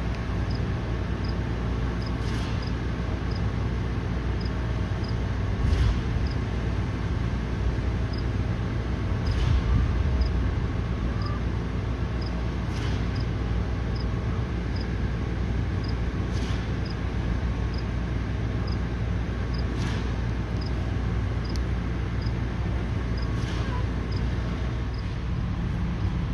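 Steady low outdoor rumble of background noise, with a faint high tick repeating about twice a second.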